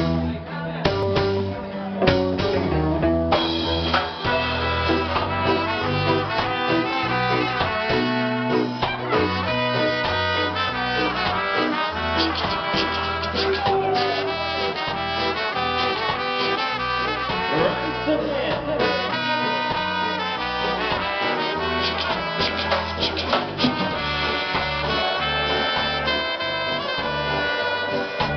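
Live reggae band playing: a trombone and trumpet horn section carries the tune over bass, electric guitar and keyboard. The horns come in fully about three and a half seconds in.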